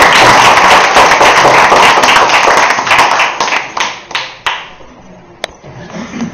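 Audience applauding: dense clapping that thins to scattered claps and dies away about four and a half seconds in, followed by one last single clap.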